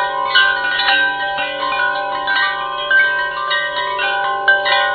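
Chime-like music: many ringing bell tones overlapping, each note held and sustained as new ones come in.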